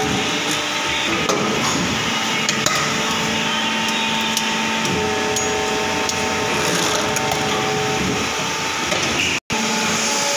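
Plastic injection moulding machine running: a steady mechanical hum with several humming tones that shift about a second in and again about five seconds in, with a few sharp metallic clicks early on. The sound cuts out briefly near the end.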